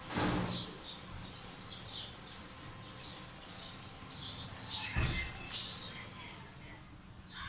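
Small birds chirping and twittering in many short, high calls. Two brief bumps of noise stand out, one just after the start and a louder-looking one about five seconds in.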